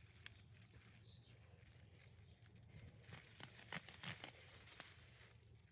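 Faint rustling and crackling of lettuce leaves as heads are handled and picked, with a handful of sharp clicks bunched about three to five seconds in.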